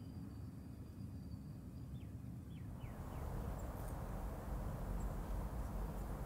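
Low outdoor rumble, most likely wind on the microphone, with a few short, falling bird chirps about two seconds in. The rumble grows louder about three seconds in, with faint high chirps after.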